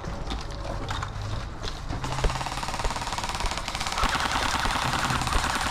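Airsoft gun firing on full auto: a fast, even rattle of shots that starts about two seconds in and keeps going, after a few scattered single shots.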